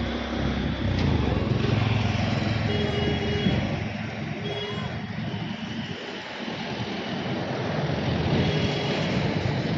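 Outdoor road-traffic noise: a vehicle engine's low rumble, loudest in the first few seconds, over a steady hiss. Three short beeping tones come at intervals.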